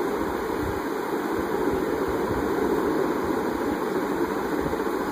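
Steady rushing background noise with no distinct events, even in level throughout.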